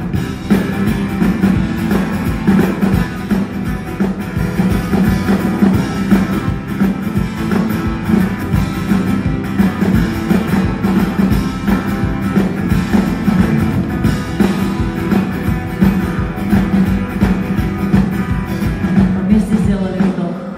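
Live concert music led by an acoustic guitar.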